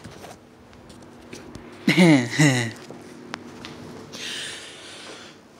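Rummaging through storage totes: scattered light clicks and knocks, a short two-part hummed vocal sound about two seconds in, then a breathy rush of noise about four seconds in.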